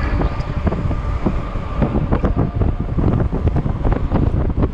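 Strong gusty wind buffeting the microphone: a loud, rough, uneven rumble, with gusts of about 40 mph.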